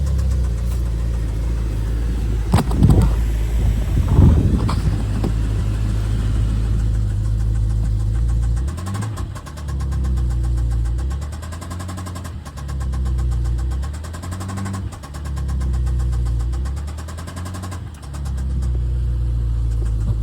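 BMW S63 twin-turbo V8 running with a knock that the owner puts down to a worn rod bearing. Two loud sudden sounds come a few seconds in, and in the second half the engine note rises and falls several times.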